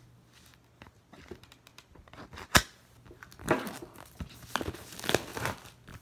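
Wrapper on a laptop box being cut with a knife and torn off, with small scattered clicks, one sharp loud click about two and a half seconds in, then irregular crinkling and tearing.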